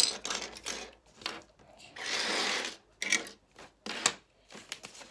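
Small hard-plastic Playmobil toilet pieces clicking and knocking as they are handled and pressed together, in a string of irregular sharp clicks. A short hiss-like noise comes about two seconds in.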